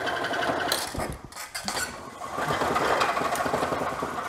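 Wood lathe turning a wooden blank while a hand-held gouge cuts it: a noisy scraping with rapid chatter over the spinning of the lathe. The blank is not running true. The cut eases off about a second in and then picks up again.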